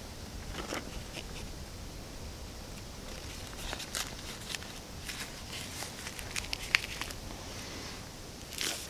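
Crinkling and rustling of a paper hunting tag being handled and fastened around a dead deer's leg, heard as a string of small clicks and crackles over a steady low rumble.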